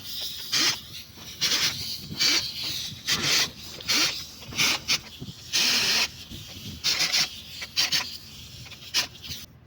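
A run of about ten short scraping, hissing bursts from hand work on a diesel engine's top end, sped up by fast-forwarding.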